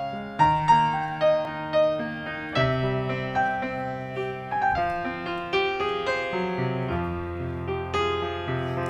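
Piano or keyboard playing a slow instrumental introduction to a hymn, chords and melody notes struck and left to ring.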